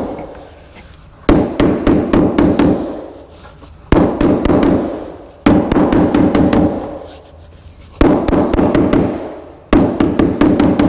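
Rubber mallet striking a vinyl plank to lock its click joint into the neighbouring boards. There are quick runs of sharp taps, several a second, about a second in and again near the end, with single harder blows between, each ringing briefly.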